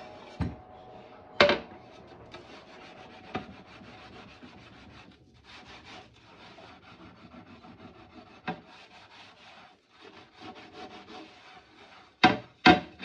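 Scrubbing and scraping at a greasy oven, a steady rough rubbing broken by a few sharp knocks, with two loud knocks close together near the end.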